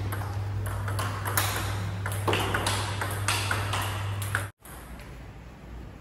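A table tennis rally: the ball clicks sharply off bats and table, about two hits a second. The hits break off with a brief dropout about four and a half seconds in, then resume more faintly.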